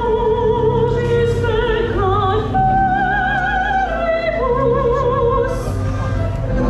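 Music: an operatic voice singing long held notes with a wide vibrato, moving to a new pitch every second or so, over a steady low accompaniment.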